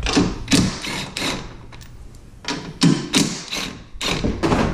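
Cordless DeWalt impact running in several short bursts, hammering the 13 mm top strut-mount bolts loose on the front strut tower.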